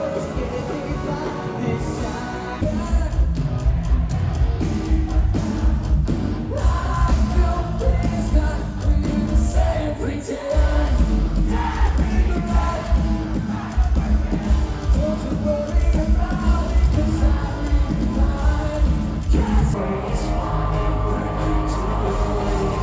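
Rock music with a singer over heavy bass and drums, sounding like a live band in a large hall.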